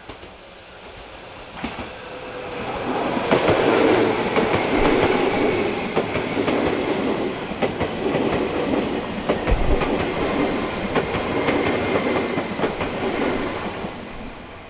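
Izukyu 8000 series electric train passing close by, its wheels clacking over the rail joints. The sound builds about two seconds in, stays loud for about ten seconds, then fades near the end.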